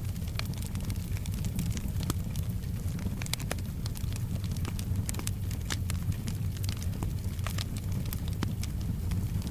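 Wood fire crackling in a fireplace: sharp, irregular pops and snaps, several a second, over a steady low rumble of the burning fire.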